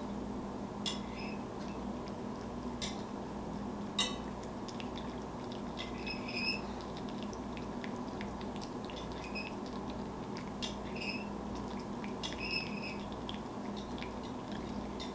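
A cat licking canned pumpkin off a metal spoon: scattered soft clicks and small ticks, some with a faint brief ring, over a steady low hum.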